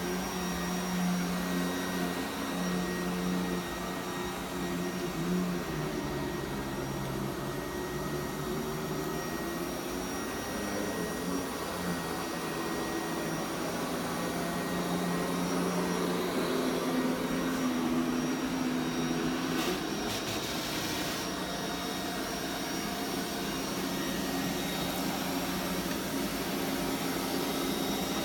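Vorwerk Kobold VR200 robot vacuum cleaner running: a steady motor hum with a high whine, whose lower tones shift in pitch as it moves. A brief knock comes about two-thirds of the way through.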